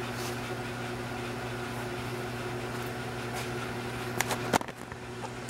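Hardinge HLV-H toolroom lathe running quietly with the spindle turning and the carriage power feed engaged: a steady even hum, with two short clicks a little past four seconds in.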